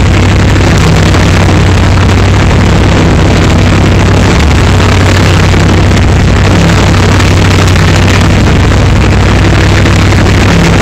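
MT-LB tracked armoured carrier's V8 diesel engine running very loud and steady, heard from the driver's position as the vehicle drives.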